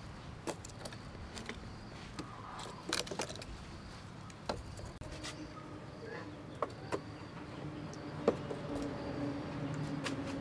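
Faint, scattered light clicks and crackles at a clay charcoal stove as paper burns under charcoal briquettes and a metal rod pokes among them. A faint steady hum joins about halfway.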